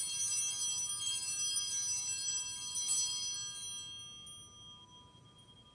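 Altar bells (a cluster of Sanctus bells) shaken in a jangling ring at the elevation of the consecrated chalice, marking the consecration. They ring loudly for about three seconds, then die away.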